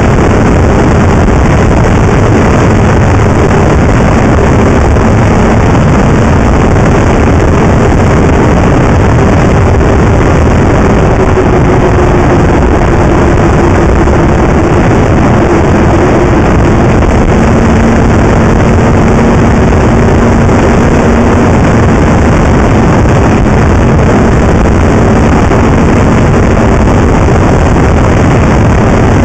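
Snowmobile engine running at a steady cruising speed, loud and unbroken, mixed with wind rushing over the microphone; the engine note shifts slightly about halfway through.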